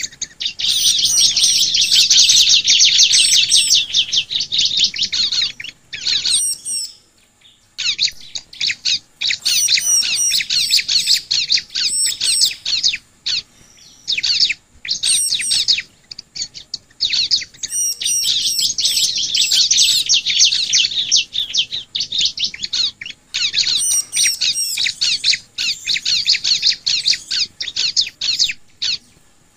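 Bar-winged prinia (ciblek) singing: fast runs of short, high chattering notes, broken by a few short pauses.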